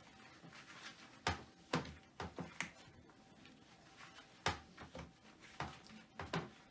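Faint, irregular clicks and knocks from cleaning a toilet with rubber-gloved hands, as the bowl is wiped and the seat is handled.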